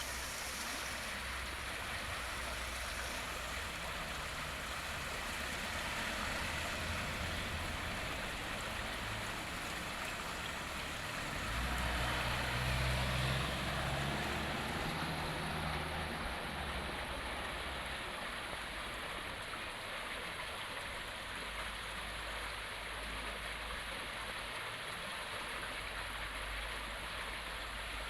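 River water flowing, a steady rushing. A low rumble swells for a few seconds near the middle.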